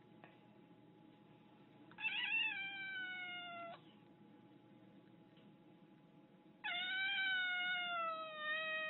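Black-and-white domestic cat giving two long, drawn-out meows, the first about two seconds in and the second starting near the end, each sliding slowly down in pitch.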